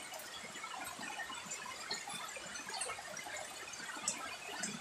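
Steady rain falling, an even patter of countless drops, with a few sharper drip ticks about four seconds in.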